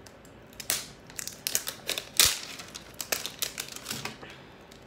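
Eyeshadow palette packaging being opened by hand: a run of crinkling, crackling rustles and small clicks, with one sharp snap about two seconds in.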